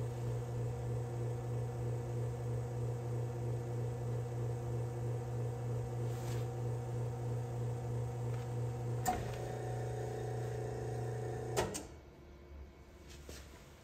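Espresso machine's pump running with a steady hum while the shot pours, with a click about nine seconds in. Another click near the end, and the pump stops; a few faint ticks follow.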